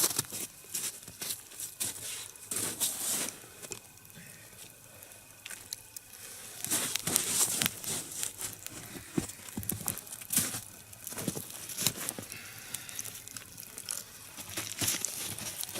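Irregular rustling, scraping and crackling as a smouldering single log of a nodya fire is shifted and turned round on the ground, with louder spells several times.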